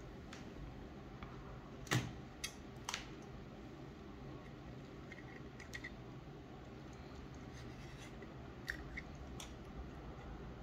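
Handling noise at a soldering bench: scattered small clicks and taps as a pen-style soldering iron and metal helping-hand clamps are picked up and moved, the loudest two about two and three seconds in, over a faint steady hum.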